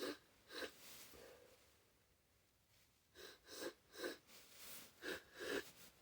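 A person's faint, short catching breaths, the 'ah… ah…' gasps of an oncoming sneeze that hasn't come yet: two near the start, then a quick run of about six in the second half.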